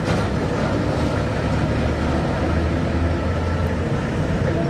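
Wind buffeting the microphone: a steady, loud low rumble with no breaks.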